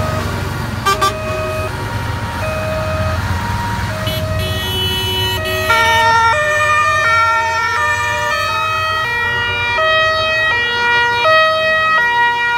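Two-tone sirens of Dutch fire engines sounding as they drive past, alternating high and low notes; from about six seconds in, several sirens overlap out of step. Truck engines rumble underneath in the first seconds, and two short loud blasts come about a second in.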